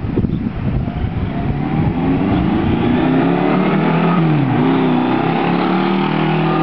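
Kawasaki KZ1000's air-cooled inline-four engine running through a Mac 2-into-1 exhaust, pretty loud. Wind noise on the microphone covers the first couple of seconds, then the engine note comes through clearly. Its pitch drops about four seconds in and climbs again as it revs back up.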